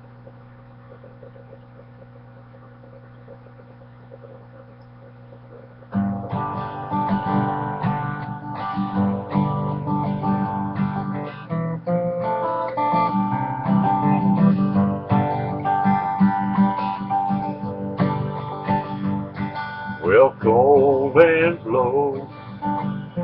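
A faint steady hum for about six seconds, then an acoustic guitar starts playing a plucked and strummed intro. A voice comes in singing near the end.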